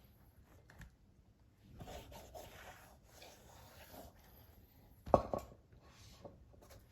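Rubber tire bead rubbing against a soap-wetted wheel rim as a Shinko 244 tire is worked on by hand, in short scrapes, with one sharp knock about five seconds in.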